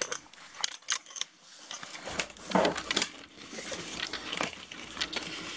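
Scattered clicks, knocks and rustles of hands working a bicycle tyre and an anti-puncture liner tape being fed into it.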